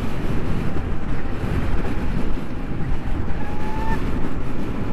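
Wind rushing and buffeting over a helmet microphone while riding a LiveWire One electric motorcycle at speed, with the electric motor's faint whine rising in pitch about three seconds in as the bike accelerates.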